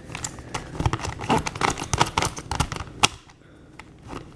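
Hand-turned 3D-printed 3x3 puzzle cube, its unstickered plastic layers clicking and scraping irregularly for about three seconds and ending with a sharper click. The owner calls this cube one that does not turn well and feels sticky.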